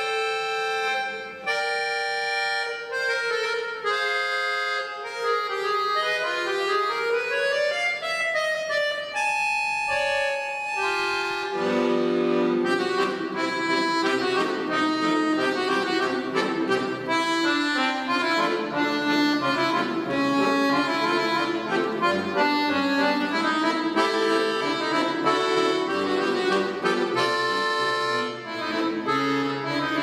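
Scandalli piano accordion played solo: a melody of held upper notes for the first ten seconds or so, then, from about twelve seconds in, a fuller and busier passage with lower chords and bass added beneath.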